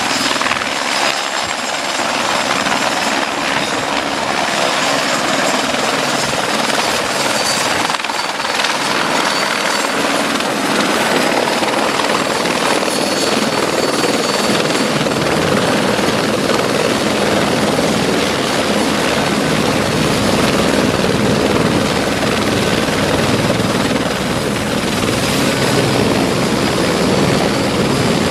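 Eurocopter AS355 F2R twin-turbine helicopter running close by, a loud, steady rotor and turbine noise; a deeper low rumble grows stronger about halfway through.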